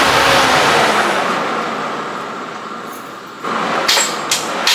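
A fading mechanical noise, then about three and a half seconds in a turbocharged Jeep 4.0 inline-six is cranked over on the starter in a series of sharp pulses. It is being cranked to listen for a dead cylinder, one that is not making compression.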